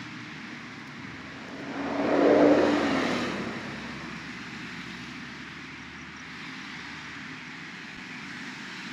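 A vehicle passing by: a noisy swell that rises over about a second and fades away over another, with a faint tone sliding slightly down, over a steady background hiss.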